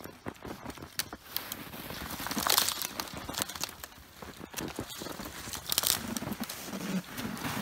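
Snow crunching and clothing rustling, with scattered short clicks, as a person kneels in deep snow and handles a snared wolf, with two louder rustling swells.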